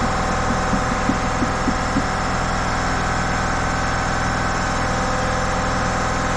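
Steady drone of a running workshop air compressor, with a few light metal clinks in the first two seconds as a planetary hub ring gear is handled.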